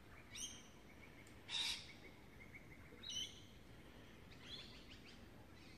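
Faint, short, high bird calls: a few falling chirps and one harsher call, spaced a second or more apart.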